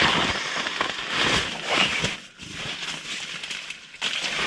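Rustling and crinkling of a nylon stuff sack, with clothing and bedding rustling as someone shifts about, in uneven bursts.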